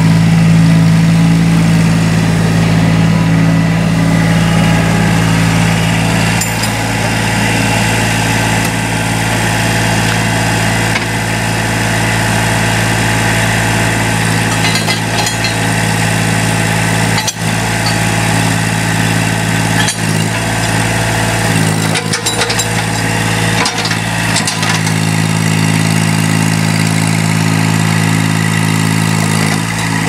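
Kubota D905 three-cylinder diesel of a small Allmand TLB225 backhoe loader running steadily while the backhoe is worked. A few sharp knocks come in the second half.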